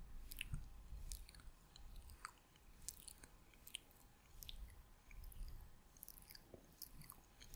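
ASMR mouth sounds made close to the microphone: faint, irregular wet clicks and smacks of the lips and tongue, several a second.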